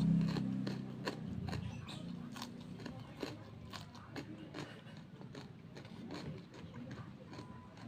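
Close-up chewing and biting of crunchy food: wet, irregular crunches and clicks several times a second.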